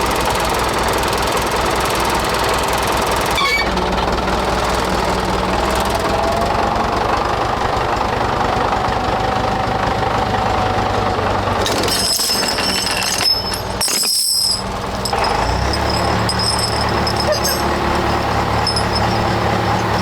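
Tractor engine running steadily under load as it pulls on chains, its note changing a few seconds in and again past the middle.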